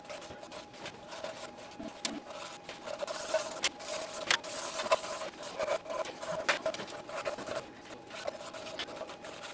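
Emery cloth rubbing and scraping on the shaft of an LG front-load washer's spider arm in irregular quick strokes, polishing the bearing seats clean of crud before new bearings go on.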